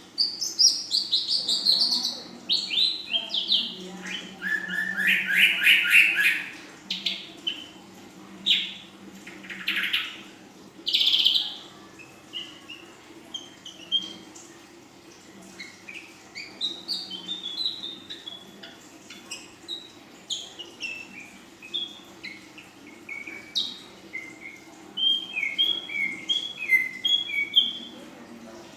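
A female ashy drongo singing. For about twelve seconds it gives loud, harsh, rapidly repeated notes, then runs of short, quieter whistled notes that come faster near the end.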